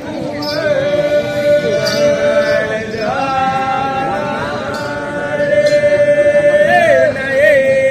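Chanted singing: long, held high notes, stepping up about three seconds in, with short wavering turns near the end.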